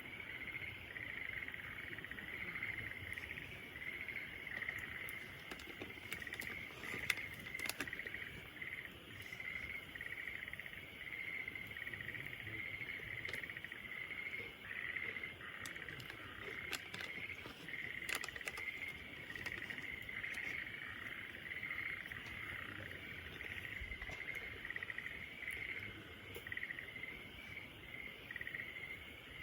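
Insects chirping in a steady, pulsing chorus over a crackling wood campfire, with sparse sharp pops, one louder about seven seconds in.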